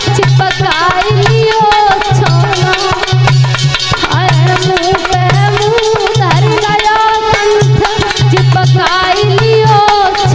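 A woman singing a mournful lament with melodic accompaniment, over a steady hand-drum rhythm. The pitched lines hold and bend, and low drum strokes repeat throughout.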